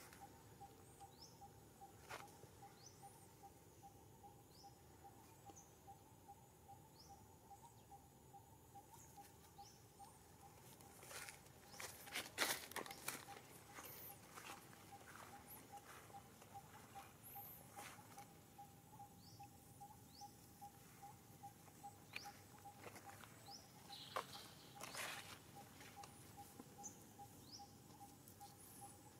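Faint rustling and crackling of dry leaves and grass as macaques move and forage, in a cluster about eleven to fourteen seconds in and again around twenty-four seconds. Under it runs a faint steady pulsing tone, with scattered short high chirps.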